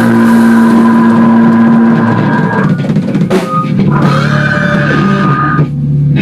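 Heavy rock band track playing loudly: drum kit hits under guitars holding sustained chords, with a brief break about three seconds in before a new held chord.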